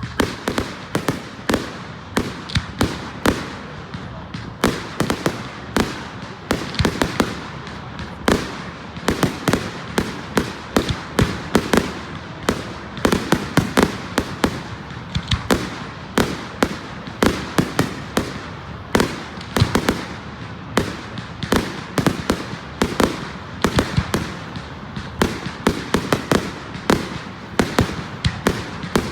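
Fireworks going off in an unbroken, irregular barrage of sharp bangs and crackles, several reports a second.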